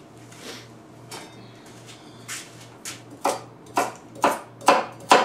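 Knife chopping carrots on a wooden cutting board: a few faint cuts, then from about two seconds in a run of sharp chops, about two a second, getting louder toward the end.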